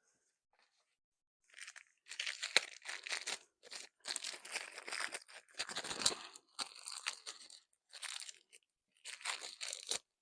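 Plastic camera accessories and their packaging being handled: irregular rustling and crinkling with sharp clicks, in bursts.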